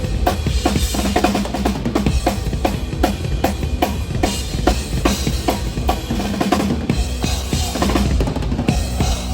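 Metal drum kit played hard at a sound check: quick, driving strokes on the bass drum and snare, with cymbals washing over them.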